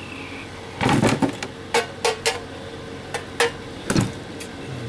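A run of sharp metal knocks and clanks, about seven in a few seconds, some ringing briefly: stainless steel coffee maker parts being handled and set down.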